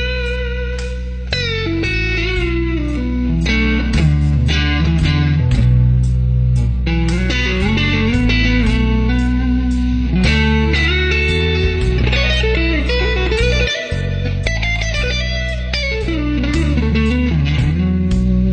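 Music: electric guitar playing a lead line with gliding, bent notes over sustained low bass notes.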